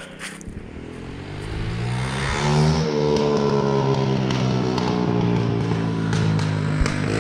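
Small single-cylinder 212cc engine on an ATV speeding up about two seconds in, then running steadily at higher revs.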